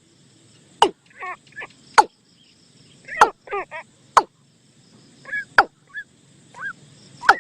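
Recorded bird lure calls: short warbling, chirping calls that glide up and down, with sharp clicks about once a second between them.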